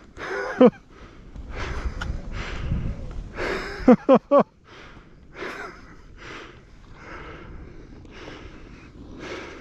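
A person's voice gives a short falling call, then three quick vocal bursts about four seconds in, followed by heavy, evenly paced breathing over low wind rumble on the microphone.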